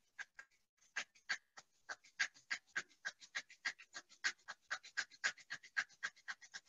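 Palms rubbed briskly together to warm the hands: a rhythmic swish of skin on skin, a few scattered strokes in the first second, then a steady run of about four strokes a second.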